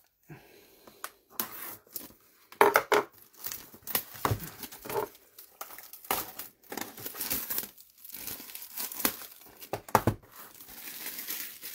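Topps Chrome trading-card packaging being torn and crinkled open by hand, in irregular bursts of rustling.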